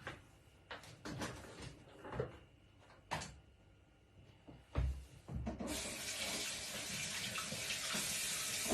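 A few light knocks, then about five and a half seconds in a tap is turned on and water runs steadily into a sink whose drain trap has been removed, so it pours straight out of the open drain.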